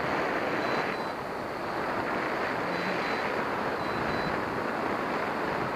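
Steady rush of wind over the microphone in flight, with a faint high beep a few times.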